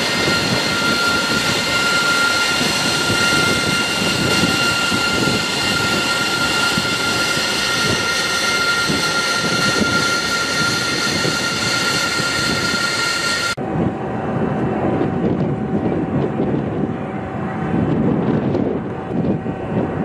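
An AV-8B Harrier II's Rolls-Royce Pegasus jet engine running: a loud, steady roar with a high turbine whine. About two-thirds of the way through the sound cuts abruptly to a lower jet roar without the whine, as the Harrier flies overhead.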